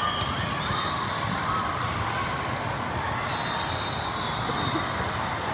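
Steady din of a large indoor hall with many volleyball games going on: a wash of crowd voices, scattered ball hits and bounces, and short high-pitched whistle tones.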